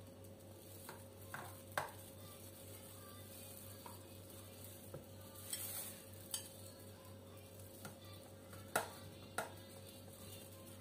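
Metal spoon scooping cream mixture from a bowl, with scattered light clinks and scrapes of the spoon against the bowl, the sharpest about nine seconds in, and a brief soft scrape around the middle.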